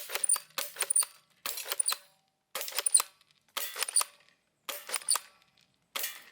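Plastic toy gun fired again and again, about once a second. Each shot is a sharp plastic click followed by a short burst with a faint metallic ring.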